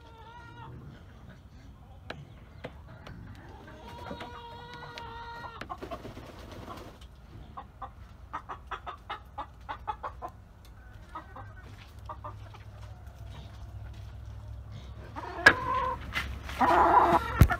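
Domestic hens clucking and calling in a chicken run, with one drawn-out squawk about four seconds in and a run of short, quick clucks a few seconds later. A few louder knocks near the end.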